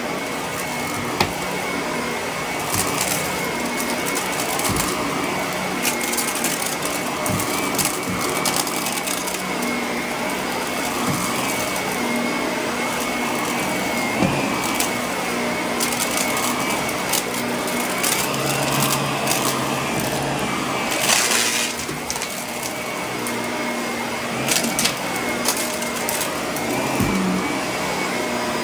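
Shark upright vacuum running with its brushroll spinning, pushed back and forth over carpet: a steady high motor whine over a constant rushing noise, with scattered clicks and rattles as small debris is sucked up.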